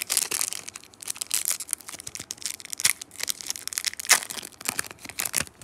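Foil wrapper of a Pokémon booster pack crinkling and being torn open by hand: a run of sharp, irregular crackles, the loudest about four seconds in.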